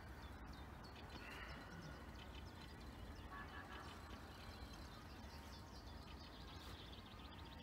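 Faint outdoor background with a low steady rumble and a few faint, brief bird calls.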